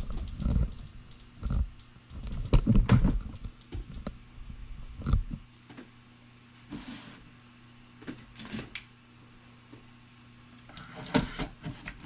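Camera handling noise: a run of knocks and rubbing thumps as the camera is moved and set in place, then a few quieter scuffs and rustles of a cardboard box being handled on a desk.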